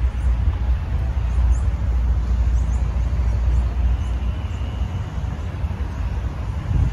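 Outdoor ambience dominated by a fluctuating low rumble of wind buffeting the microphone, with faint high chirps scattered through it.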